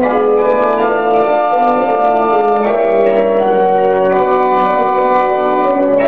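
Pipe organ being improvised on: held chords with several voices, the notes shifting about every half second to a second at an even loudness.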